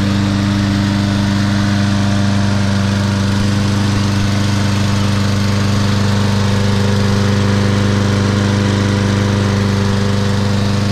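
Briggs & Stratton 6.75 hp single-cylinder engine on a Troy-Bilt high-wheel push mower, running steadily at an even speed.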